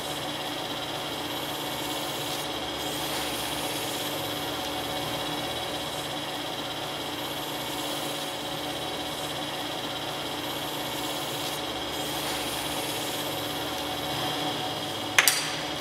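Electric potter's wheel running with a steady hum as the wheel head spins. A single sharp click near the end.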